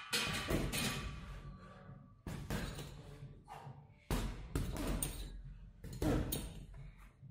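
Boxing gloves punching a heavy leather punching bag: four hard thuds about two seconds apart, with lighter hits in between.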